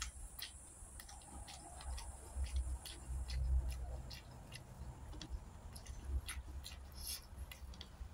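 Close-miked chewing of a mouthful of rice and sardine: scattered wet mouth clicks and smacks, a few a second, over low dull thuds.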